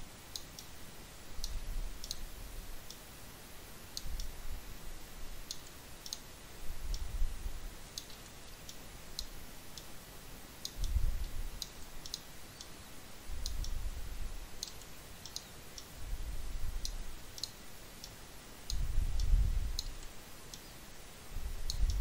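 Computer mouse clicking at an irregular pace, small sharp clicks one to three a second, with dull low rumbles every two to three seconds that are louder than the clicks.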